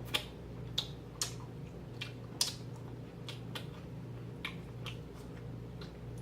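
Close-up mouth sounds of someone chewing food: irregular wet smacking clicks, about one every half second, over a steady low hum.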